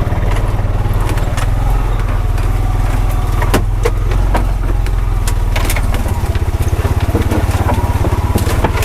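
Honda Pioneer 520 side-by-side's single-cylinder engine running steadily at low speed, with sharp knocks and rattles now and then.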